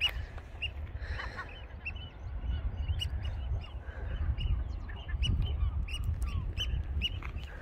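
Gulls calling: many short, sharp calls from several birds, coming thicker in the second half, over wind rumbling on the microphone.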